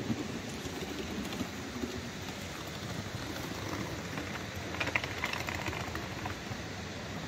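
Steady street ambience at night: an even hiss of background noise, with a few faint clicks about five seconds in.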